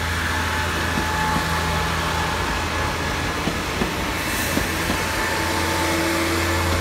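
JR KiHa 40-type diesel railcar running slowly past, its engine giving a steady hum, with a few short clicks from the wheels near the middle.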